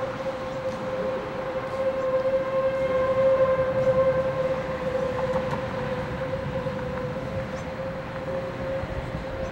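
Outdoor tornado warning siren sounding a single steady tone, swelling louder about three to four seconds in and then slowly fading, over a steady rushing noise.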